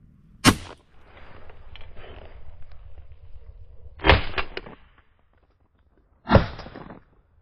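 Three shotgun shots: one about half a second in, one about four seconds in and one about six and a half seconds in, each a sharp crack with a short echoing tail.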